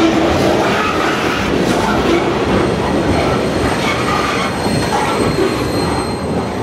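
Freight train cars rolling past at close range: a steady rumble of steel wheels on the rail, with the wheels squealing in short tones that keep shifting in pitch. The sound carries on at much the same loudness as the last car, a covered hopper, passes and moves off.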